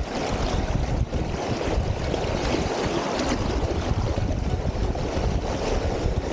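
Fast river current rushing and splashing around a wading angler's body, a steady noise with wind buffeting the microphone.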